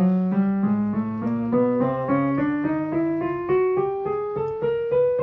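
Keyboard with a piano sound playing a slow ascending scale one note at a time, about two to three notes a second, climbing through the alto voice range from E3 toward G5. A low note is held underneath and dies away about halfway through.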